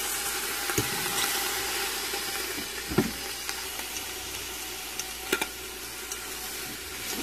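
Blade roast searing in hot oil in an Instant Pot's stainless inner pot on sauté, giving a steady sizzle. A few sharp clicks of metal tongs against the pot come through it as the meat is turned.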